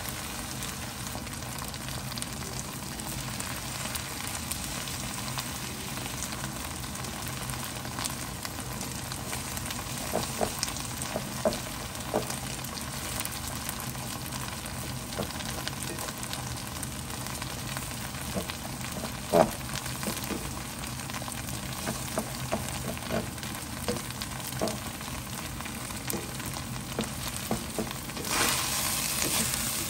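Beaten egg sizzling in oil in a nonstick wok, with scattered scrapes and taps of a spatula against the pan as the egg is scrambled. The sizzle grows louder near the end.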